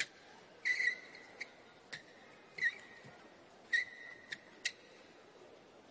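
Court shoes squeaking on the badminton court floor: three squeaks, each a sharp squeal that rings on as a steady high tone for up to a second, with a few sharp clicks between them.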